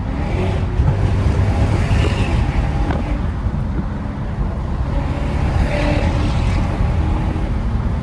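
Lexus GS430's V8 running with its catalytic converters removed, a steady low exhaust drone with road and wind noise while cruising.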